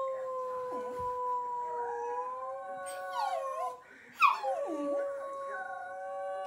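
Dogs howling together in long, drawn-out howls held at a steady pitch. About three seconds in the howl breaks into short falling, wavering yips, then a second long howl starts.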